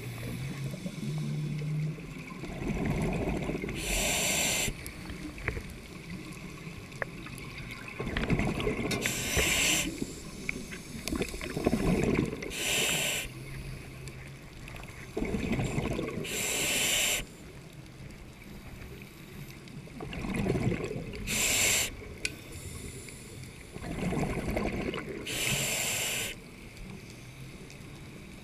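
Scuba regulator breathing underwater: a hissing breath roughly every four seconds, with the rumbling bubble noise of exhalations in between.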